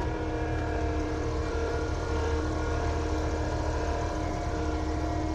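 Avant compact loader's engine running at steady revs, a constant drone with an even low hum and no change in pitch.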